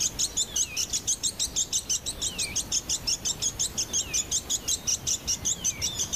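A Bonin white-eye (Apalopteron familiare) calls loudly in a fast, steady string of high chirps, about seven a second, with a falling slurred note every second or two. It is territorial calling, to drive off neighbouring birds.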